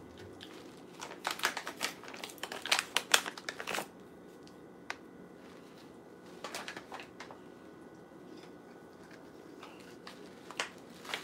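Plastic snack packet crinkling and rustling as it is handled and shaken out. It comes in two spells of rapid crackles: the first starts about a second in and lasts a few seconds, the second is shorter and comes about six and a half seconds in.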